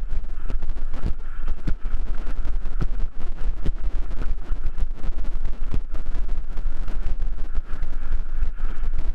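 Wind buffeting the microphone of a helmet-mounted action camera on a mountain bike moving fast downhill, a steady low rumble, with frequent short clattering knocks from the bike jolting over rough, cracked dirt trail.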